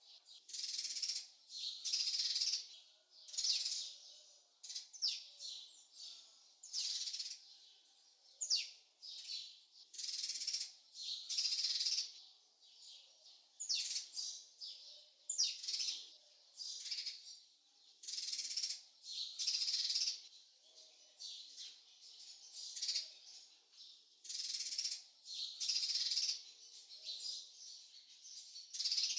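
Small birds chirping in short, high, rasping bursts that repeat about once every second or so, with a few quick sweeping chirps among them.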